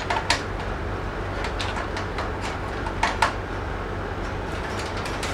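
Several sharp clicks and taps from computer parts and tools being handled during a PC build, the loudest pair about three seconds in, over a steady low hum.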